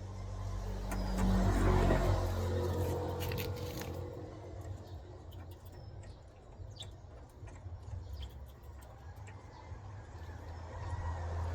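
A car engine running: it swells over the first two seconds, eases off and hums steadily, then rises again near the end, with a few small clicks over it.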